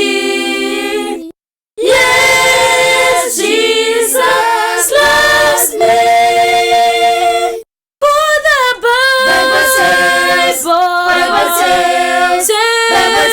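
An a cappella choir with female voices singing a hymn in harmony, with no instruments. The singing breaks off to total silence twice for a split second, about a second and a half in and again a little before the middle.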